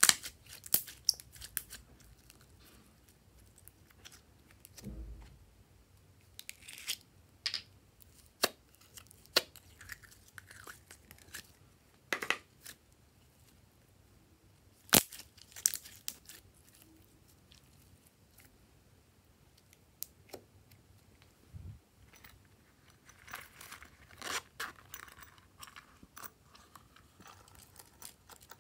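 Hands working glossy slime: irregular sticky clicks, pops and crackles as the slime is pulled, stretched and pressed down into the trays, with a few louder snaps and a soft low thump about five seconds in.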